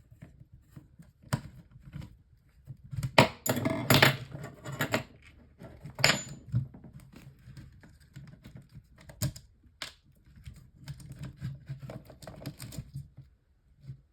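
Small fan heater's plastic and metal parts clicking and rattling as it is taken apart by hand, with a dense clatter about three to five seconds in and sharp knocks near six and nine seconds.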